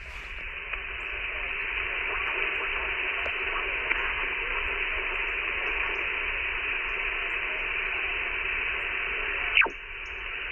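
Static hiss from an Icom IC-7200 HF transceiver's speaker while it is on the 10-metre band with no station transmitting. The hiss swells over the first couple of seconds, then holds steady. Near the end a short, loud chirp drops quickly in pitch.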